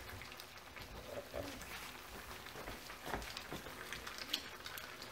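Thai red curry simmering in a skillet on the stove: a soft, steady sizzle and bubbling with faint pops, and a couple of light clicks a few seconds in.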